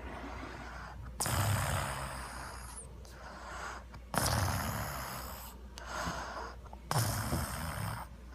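A sleeping man snoring: three loud snores about three seconds apart, each starting abruptly with a low rumble and fading away.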